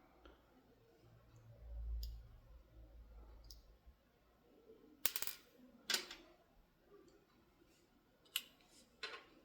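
Small sharp metal clicks and taps of lock pins and tools being handled while a pin-tumbler lock is taken apart. There are four louder clicks in the second half and a dull low bump about two seconds in.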